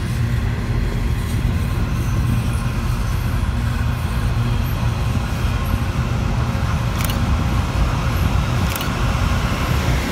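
Coal train's hopper wagons and mid-train Aurizon locomotive rolling past at close range with a steady low rumble, with two short clicks about seven and nine seconds in.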